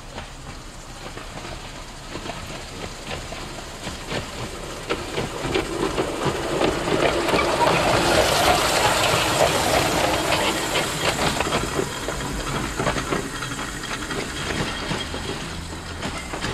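Quarter-scale model of a BC Electric Railway streetcar rolling along a backyard track, its wheels rumbling and clicking on the rails. The sound swells as the car comes closer, is loudest as it passes close by about eight seconds in, then eases as it runs away.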